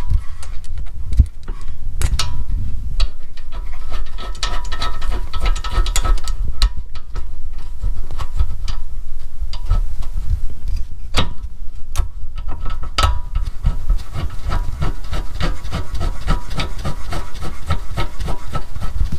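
Hand ratchet clicking in rapid runs, with sharp metal clinks, as the rear brake caliper bolts are run back in.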